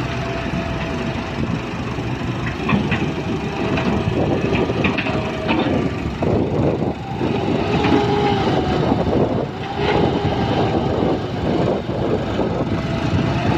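Heavy diesel earthmoving machinery working: engines running with pitch rising and falling under load, with several sharp metallic clanks.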